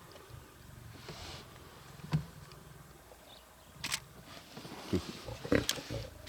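Lioness growling and snarling in short, rough bursts at young lions coming too close, about four seconds in and again near the end.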